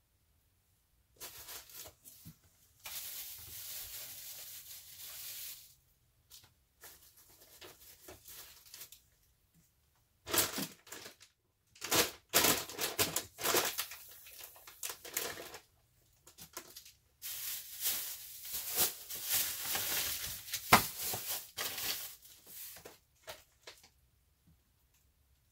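Plastic bags and packaging rustling and crinkling in irregular bursts as items are handled and packed into a cardboard box, with a few sharp knocks of things being set down.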